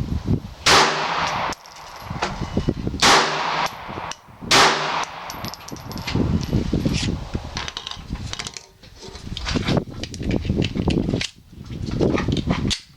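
Three shots from a Glock 42 .380 pistol within the first five seconds, the last two about a second and a half apart, each with a short ring-out. After them comes lower, irregular rustling and clatter.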